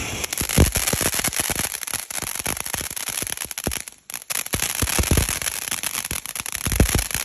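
Fireworks going off: a dense, rapid crackle of many small pops with a few louder bangs among them, breaking off for a moment about four seconds in.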